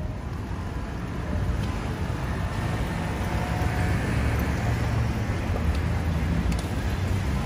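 City traffic at a busy intersection: a steady rumble of engines and tyres, growing louder a little over a second in.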